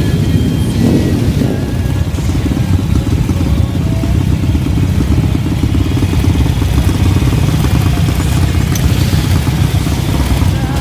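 Several motorcycle engines running at low speed in a slow-moving group, making a steady, dense low throb.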